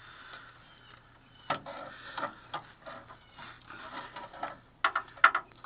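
Irregular handling noises, rustling with light clicks and knocks, loudest about a second and a half in and again near the end, over a faint steady low hum.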